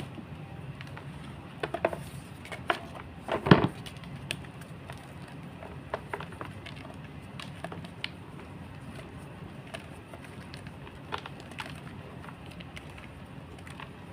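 Block of gym chalk being crushed, giving irregular sharp crunches and snaps, the loudest cluster about three and a half seconds in, over a steady low hum.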